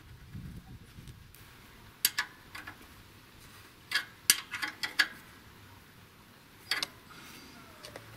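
Sharp metal clicks and clinks of a wrench tightening the oil drain bolt on a cultivator engine's crankcase. They come in scattered groups about two seconds in, four to five seconds in, and once more near seven seconds.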